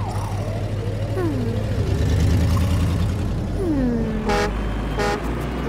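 Animated excavator's red trumpet horn honking twice in short blasts near the end, over a steady low engine rumble. The horn is an alarm that sounds when the driver dozes off at the wheel.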